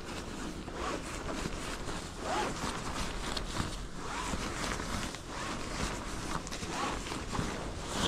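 Crinkly nylon rustling and rubbing as a black sleeping pad is rolled up tightly by hand, the fabric scraping against a plastic groundsheet.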